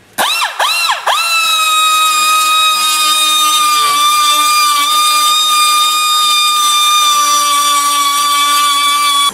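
Pneumatic die grinder with a small grinding bit, whining as it spins. The pitch swoops up and down twice as the trigger is feathered, then holds steady at speed while the bit grinds down a plastic edge, sagging slightly about four seconds in. It cuts off at the end.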